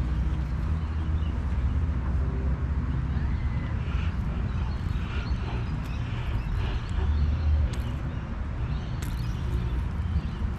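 Steady low outdoor background rumble, with a few faint clicks later on.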